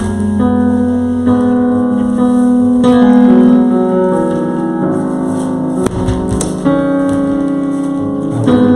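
Background keyboard music: slow held piano-like chords, changing every second or so.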